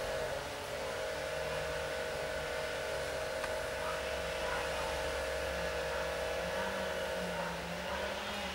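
A motor running with a steady pitched hum over a low rumble; the hum stops about seven seconds in while a lower engine note rises.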